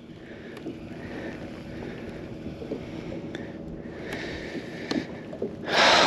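Open-water ambience around a kayak, a steady wash of water and light wind with a few faint clicks, then a loud rush of noise lasting about a second near the end.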